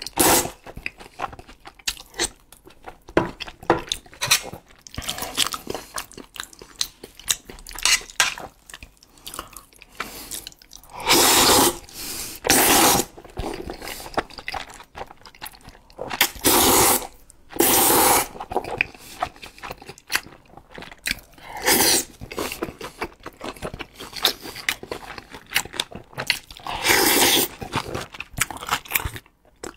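A person eating jajangmyeon, thick noodles in black bean sauce: wet chewing and smacking throughout, with several loud slurps of noodles about a second long, two around a third of the way in and two more a little past halfway.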